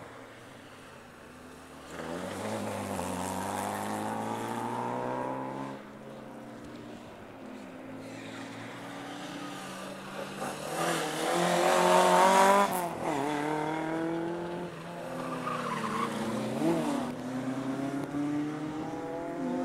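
Rally cars' engines revving hard through a tyre chicane, the pitch climbing through the gears and dropping again several times. A Ford Escort Mk2 rally car passes loudest about halfway through, with tyre noise as it turns.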